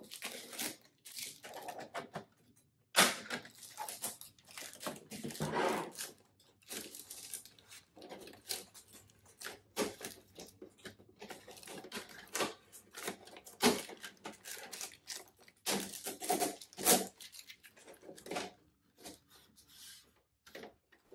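Blue packing tape being peeled off a new inkjet printer and cardboard packing pieces being pulled out, in irregular tearing and rustling bursts with scattered clicks and knocks.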